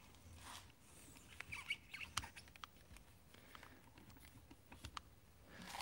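Near silence with faint, scattered light clicks and rustles, small handling noises.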